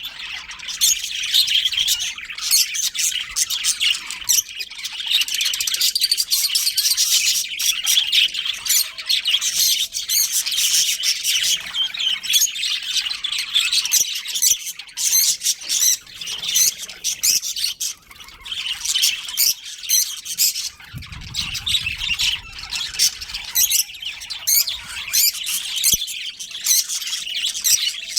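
A colony of budgerigars chirping and squawking nonstop, many birds calling over one another in quick, high chirps. A brief low rumble comes about two-thirds of the way through.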